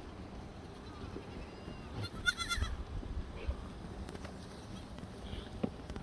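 A black goat bleats once, about two seconds in: a short, high, quavering call over a low background rumble.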